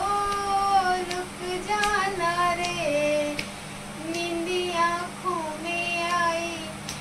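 A high-pitched voice singing a slow melody, holding long notes and sliding between them.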